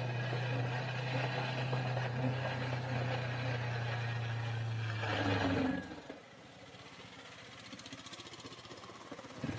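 Motorcycle engine running steadily at an even pitch. After a brief louder rush about five seconds in, it cuts off abruptly, leaving a much quieter hiss.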